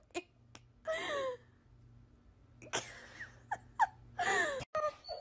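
Two cats sparring with their paws and giving short, falling cries with a breathy hiss in them: one about a second in, then a cluster of four or five more near the end.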